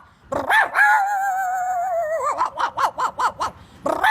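A man imitating a dog with his voice: a long wavering howl-like whine, then quick yapping barks, about six a second, and after a short pause another run of yaps near the end.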